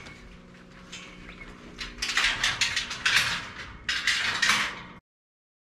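Rattling and clinking of a metal-barred dog pen, in three bursts over the last few seconds, that cuts off suddenly.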